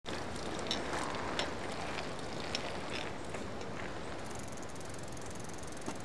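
Trek road bicycle rolling over a paved path, with a few sharp clicks from the bike. From about four seconds in, its freewheel hub ticks rapidly as it coasts to a stop.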